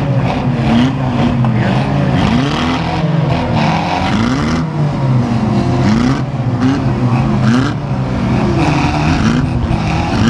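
Several 2-litre rear-wheel-drive banger race cars' engines revving hard at once, pitch rising and falling again and again, as the cars shove against each other in a pile-up.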